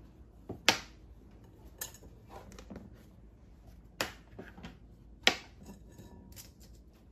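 Kitchenware being handled: four sharp clacks and a few lighter taps as a plastic lid is lifted off a stainless steel mesh strainer and the lid and a small spoon are set down on a stone countertop.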